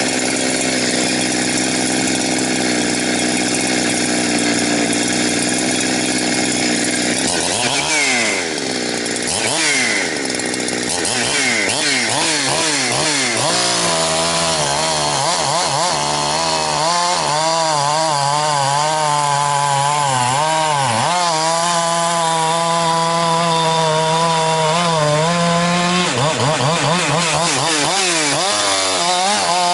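Two-stroke chainsaw running at full throttle, with a few quick drops and rises in engine speed after about eight seconds. From about halfway the pitch drops and wavers as the chain is loaded in a cut, then picks back up near the end.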